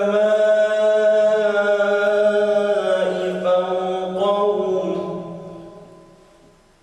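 A man's voice in melodic Quran recitation (tajweed), holding a long sung phrase through a microphone, its pitch moving in ornaments about halfway through. The phrase trails off and fades out over the last couple of seconds.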